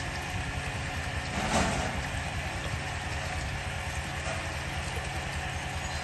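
An engine running steadily under the gushing and splashing of water as a high-pressure drain-jetting hose clears a drain pipe into a sewer pit, with a brief louder rush of water about a second and a half in.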